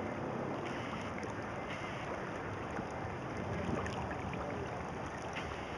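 Steady rushing noise of moving floodwater, with a few faint ticks.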